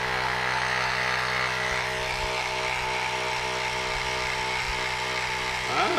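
Hamron battery-powered portable compressor running steadily as it inflates an inflatable swimming arm float, a constant, even electric motor note.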